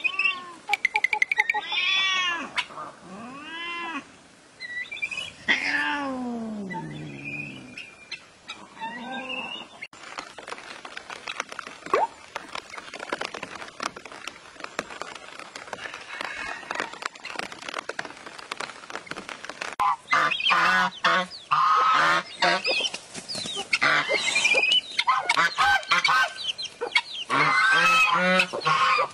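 Farmyard poultry calling: a string of drawn-out, falling calls in the first third, then busy, overlapping clucking and calling over the last third.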